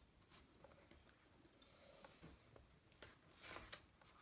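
Near silence, with faint paper sounds from a hand on a picture-book page, then a soft rustle about three and a half seconds in as the page is turned.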